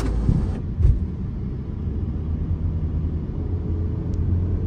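Car driving on the road, heard from inside the cabin: a steady low rumble of engine and tyres. A short hiss comes at the start and a thump about a second in.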